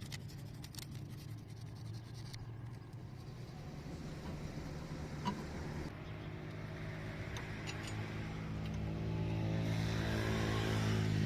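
A machine's motor running with a steady hum that sets in about halfway through and grows louder; faint scraping and clicks before it.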